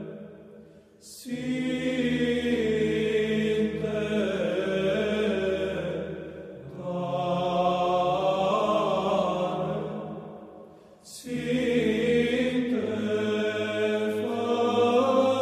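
Choir singing a slow Orthodox liturgical chant over a held low drone. It comes in three long phrases, with short breaks about a second in, around six and a half seconds in, and around eleven seconds in.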